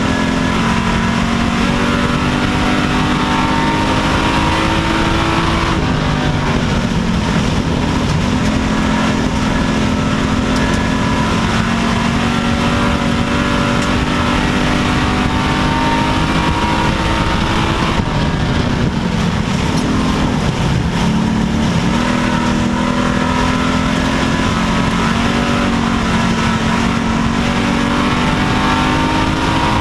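WISSOTA Street Stock dirt-track race car's V8 engine at racing speed, heard from inside the car. It is held high on the straights and drops in pitch as the throttle eases for the turns about six seconds in and again about twenty seconds in, then climbs back up.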